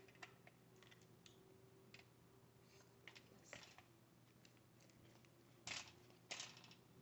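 Close-miked eating sounds: faint mouth clicks and smacks, with three short crackly bursts about three and a half, five and a half and six seconds in, over a faint steady hum.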